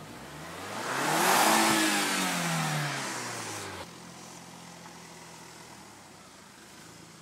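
Lotus Europa's 2.0-litre turbocharged four-cylinder starting up: it catches and flares to high revs, then the revs fall away. About four seconds in it settles to a steady idle.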